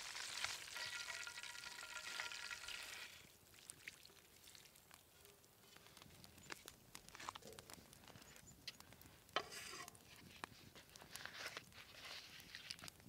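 Hot oil sizzling in a frying pan around breaded grouse cutlets; it stops about three seconds in. A quieter wood fire follows, crackling with sharp pops and one loud crack, and near the end butter starts to sizzle in a pan on the fire's grill.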